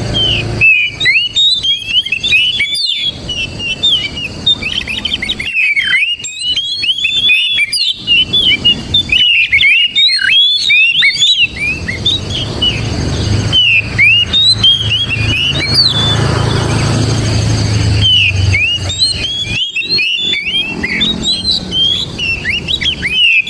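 Oriental magpie-robin singing loudly and without pause: a fast, varied run of short whistled notes and chirps. A low rumble sits underneath for several seconds in the middle.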